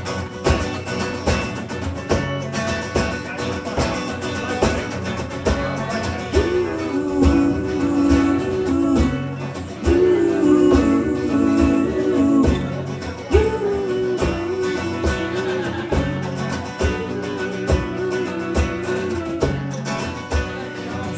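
A live band playing the instrumental intro to a song: strummed guitars over a steady beat, with a held melody line coming in about six seconds in.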